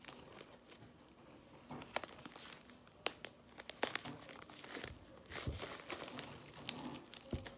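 Clear plastic shrink wrap being peeled and torn off a boxed tablet and crumpled in the hand: irregular crinkling and crackling with a few sharper snaps.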